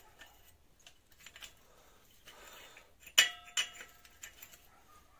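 Metal tools and parts clinking during hand work on an engine: scattered light taps, then one sharp metallic clink about three seconds in that rings briefly, followed by another clink.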